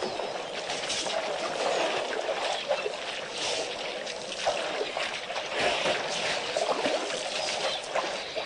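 Shallow water splashing and trickling at the edge of a waterhole as elephants step about in it, in irregular short sloshes.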